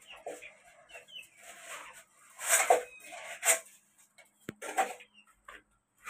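A chicken squawking and clucking in short, loud calls, the loudest about two and a half and three and a half seconds in, with its wings flapping. A single sharp knock comes about four and a half seconds in.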